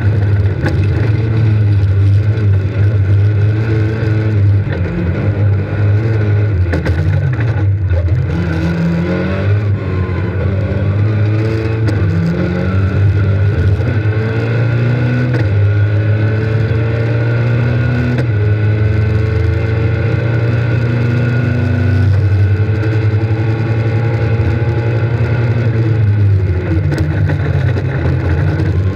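Rally car's engine at racing speed, heard from inside the cabin, revs climbing and dropping back again and again as it is driven hard through the stage.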